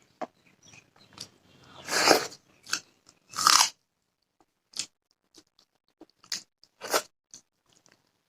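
Close-miked eating sounds: crunchy bites and chewing, in irregular short crackles with two louder crunches about two and three and a half seconds in.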